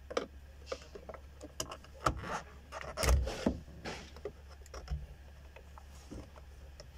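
Plastic clicks and knocks of an Audi Q7 horn pad (driver airbag module) being released from the steering wheel and handled, with a louder knock about three seconds in.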